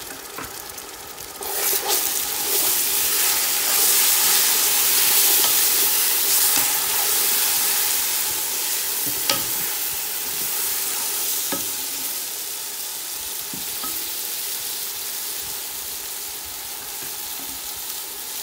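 Ground tomato, onion and spice masala sizzling loudly in hot oil in a karahi as it is stirred and fried (bhuna) with a slotted spoon. The sizzle swells about a second and a half in, then slowly eases off, with a couple of sharp clicks of the spoon against the pan.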